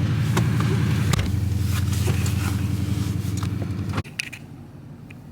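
Car engine running with a steady low drone heard inside the cabin, with a few light clicks. It cuts off abruptly about four seconds in, leaving a quieter background with scattered clicks.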